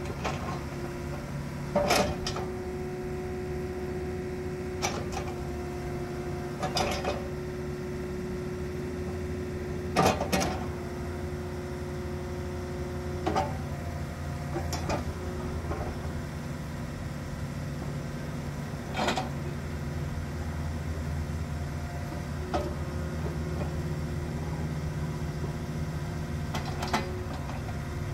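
Takeuchi TB260 mini excavator's 2.0 L four-cylinder turbo diesel running steadily while the hydraulics work the boom, arm and thumb, with a steady whine that stops about halfway. About a dozen short, sharp knocks come at irregular intervals as the attachments move.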